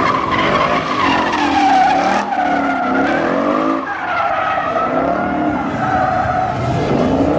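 Ford Mustang drifting: its engine revs rise and fall while the rear tyres skid and squeal, with two short dips in the engine note about two and four seconds in.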